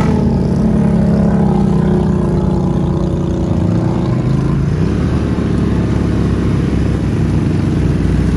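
ATV engines running at a low, fairly steady throttle as the quads wade through a creek. The engine note changes about halfway through.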